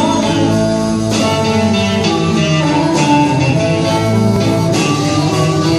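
Live blues band playing an instrumental passage: electric guitars, bass and drums with harmonica, at a steady full level.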